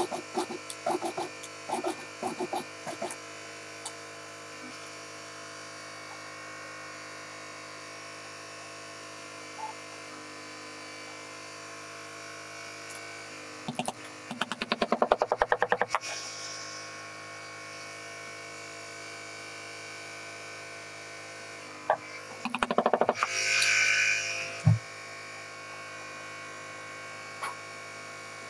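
Industrial sewing machine's motor humming steadily, broken by short runs of rapid stitching clatter: a few near the start, one about halfway through and one about three-quarters through. A single low thump follows the last run.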